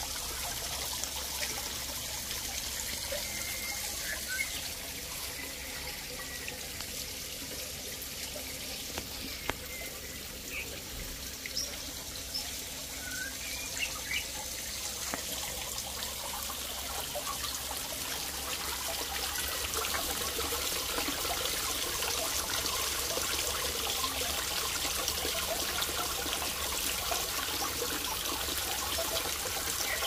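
Water trickling and splashing as it falls in thin streams off a rock-and-boulder garden cascade into a small pool. It runs steadily and grows somewhat louder about halfway through.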